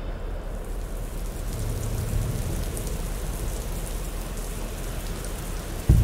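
Steady rain ambience, a constant hiss of falling rain, with a low rumble underneath from about a second and a half in.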